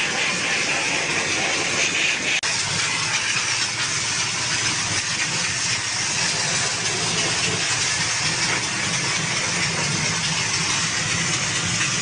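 Electric high-pressure steam cleaner jetting steam: a steady hiss over a low machine hum, dropping out for an instant about two and a half seconds in.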